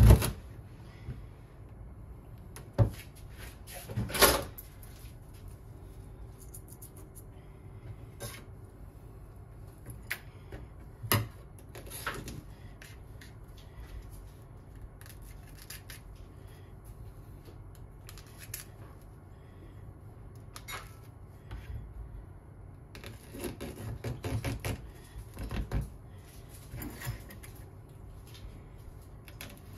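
A kitchen knife chops through a Japanese leek onto a cutting board with a sharp knock, followed by a few more separate knocks. Later comes a run of small taps and rustles as the leek pieces are handled and threaded onto bamboo skewers.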